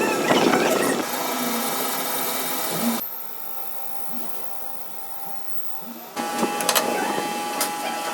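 Machine-shop tools running: a steady motor whine with clatter and scraping. It changes abruptly about one, three and six seconds in, and is quieter in the middle stretch.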